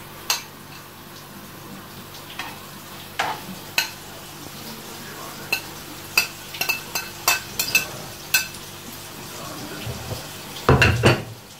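Raw meatballs frying in ghee in a nonstick pan: a steady soft sizzle with scattered sharp pops and ticks as the balls go into the hot fat. A louder knock comes near the end.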